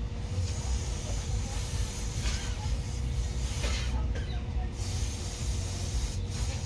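A running engine: a steady low rumble with a faint constant tone above it and some hiss.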